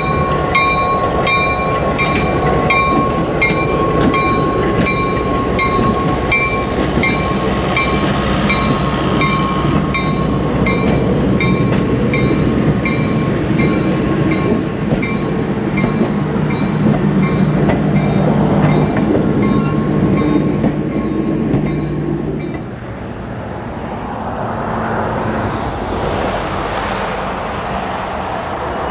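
Ex-Southern Pacific EMD SW900 diesel switcher pulling a coach past, its engine rumbling steadily, with a regular metallic ringing about twice a second. About three-quarters of the way through the rumble and ringing stop, leaving a quieter outdoor hiss that swells near the end.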